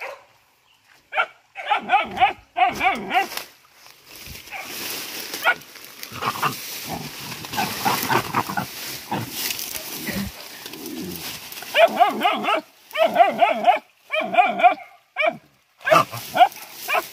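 Hunting dogs barking in short repeated bursts at a pig they have found in the undergrowth, with a rougher, noisier stretch of commotion in the middle and the barking quickening again near the end.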